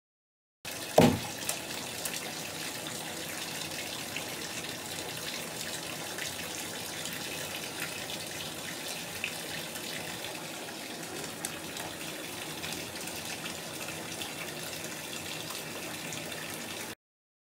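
A sharp splash about a second in as a bath bomb drops into a bathtub of water, then a steady rush of water running into the tub, with small crackles throughout.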